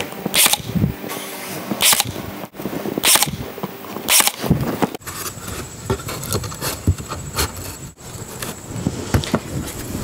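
Ryobi cordless brad nailer firing four times in about four seconds, each shot a sharp crack into pine board, with a steady motor hum between shots. After that come light knocks and scrapes as the wooden box is handled.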